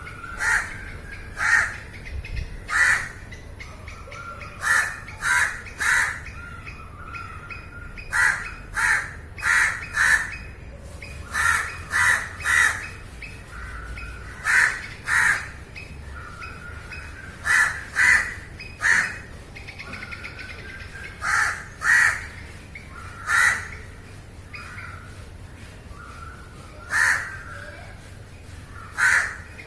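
Crows cawing: short caws, mostly in pairs or threes, repeated every second or two, with a fainter wavering call running between them.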